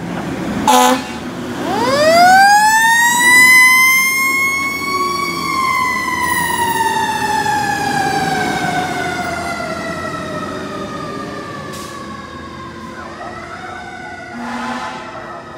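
Fire engine's siren winding up steeply to a peak over about three seconds, then slowly winding down for the next eight, opened by a short, loud horn blast. A second, fainter horn blast comes near the end.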